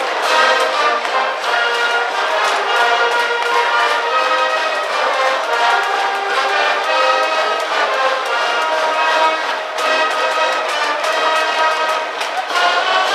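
High-school brass band playing a cheering tune in the stands at a baseball game: trumpets and trombones in sustained melody over drum hits.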